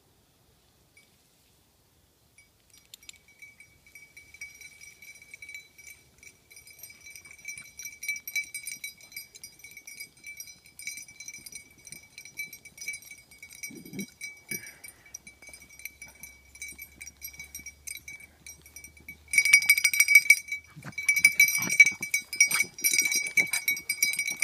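Collar bells on running beagles jingling steadily. The bells grow much louder about two-thirds of the way in as the dogs come close, with a short dog yip near the middle.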